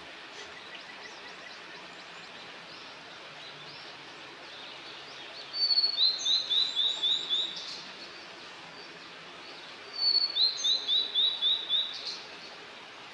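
A songbird singing twice over a steady outdoor hiss, each song a high note followed by a quick run of about eight clear, downslurred whistled notes.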